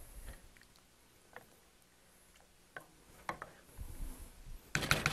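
Wooden spoon stirring chicken pieces in a cream sauce in a large sauté pan: a few scattered light knocks and scrapes of the spoon against the pan. A louder noise starts just before the end.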